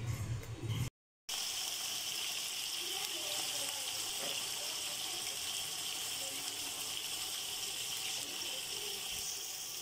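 Sliced onions sizzling in hot ghee in a large aluminium pot, a steady hiss that starts after a brief gap about a second in.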